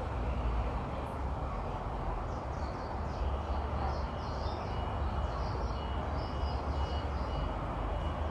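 Outdoor ambience: a steady low rumble of distant traffic, with small birds chirping a couple of seconds in, and a vehicle's reversing alarm starting to beep about three seconds in, about twice a second.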